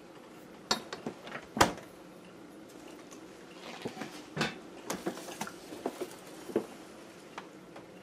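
Knocks and clinks of a refrigerator being rummaged through, its doors and the things inside being handled: a string of separate sharp knocks, the loudest about a second and a half in, then a busier cluster in the middle.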